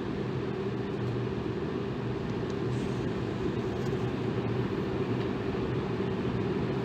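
Electric fan running steadily, a constant whooshing air noise with a low motor hum underneath.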